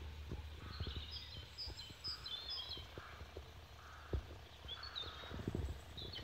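A small bird singing short, high twittering phrases, two spells of them, over scattered low bumps and a faint rumble.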